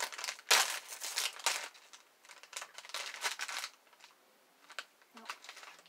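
Plastic candy packaging crinkling as it is handled, in two loud bursts during the first few seconds, then a few faint rustles and ticks.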